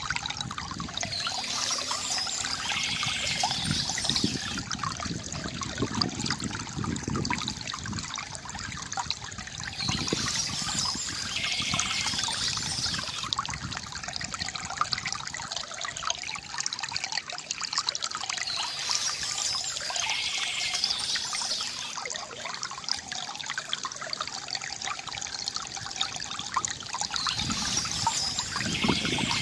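Water from a bamboo fountain trickling and gurgling steadily, with a brighter patch of sound returning about every nine seconds.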